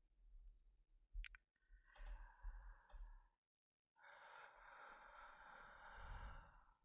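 Quiet, close-up breathing of a man acting sleepy: a short breath about two seconds in, then one long sigh lasting nearly three seconds. A faint click comes about a second in.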